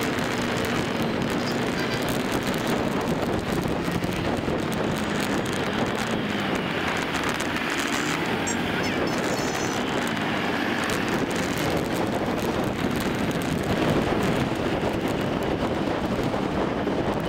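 Traffic noise heard from a moving motorbike: scooter and car engines running and tyre noise, with wind buffeting the microphone.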